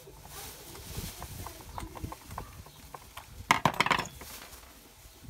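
A screwdriver and the steam iron's plastic parts clicking and tapping as the iron is put back together, with a quick rattle of louder clicks about three and a half seconds in.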